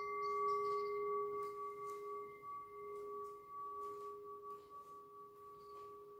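Hand-held metal singing bowl ringing out after a single strike with a mallet: a low tone with higher overtones, slowly fading away.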